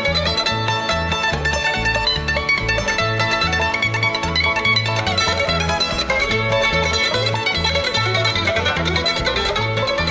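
Instrumental break of a country-bluegrass song: plucked string instruments, mandolin or banjo picking the lead, over a steady alternating bass line.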